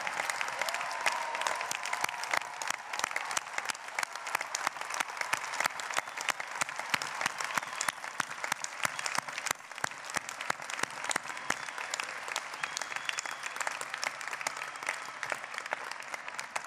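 A large crowd applauding, a dense steady patter of many hands clapping that begins to die down near the end.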